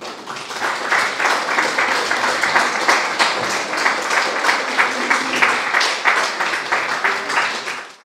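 Audience applauding, a dense patter of many hands clapping, which cuts off suddenly near the end.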